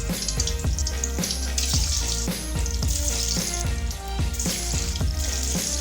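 Cornflour-coated egg quarters sizzling steadily as they deep-fry in hot oil in a kadai, over background music with a steady beat.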